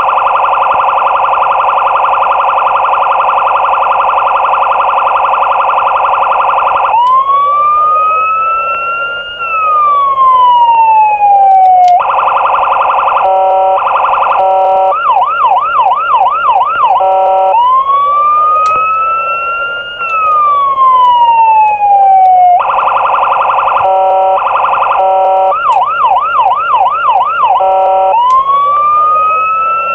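USA-style police siren sound module playing through a small RC siren speaker, cycling through its modes. A steady horn-like tone for several seconds gives way to a rising and falling wail, then a tone pulsing on and off, then a fast warbling yelp, and the cycle starts again.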